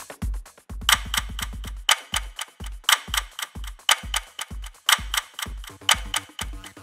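Countdown-timer sound effect: a cluster of clock-like ticks about once a second, over an electronic dance beat with a kick drum about twice a second.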